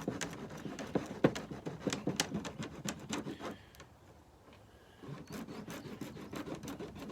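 Plastic beehive frames being handled: a run of sharp clicks and knocks, a quieter pause about four seconds in, then steady scraping and rubbing on the plastic.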